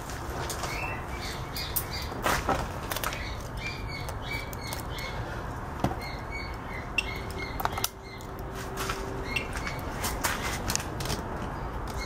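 Clicks and knocks of a multimeter and its test leads being picked up, handled and set down, over a steady background hum, with short high chirps recurring throughout.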